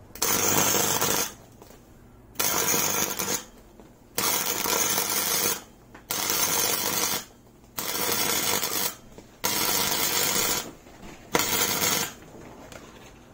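Electric arc welder crackling and spitting in seven short runs of about a second each, with brief pauses between them: tack welds fixing a thick steel bracket to a gearbox mount.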